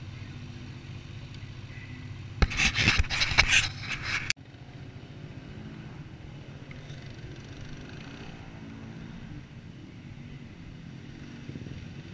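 ATV engine idling steadily. About two seconds in, loud rubbing and scraping starts over it, lasts about two seconds and cuts off abruptly.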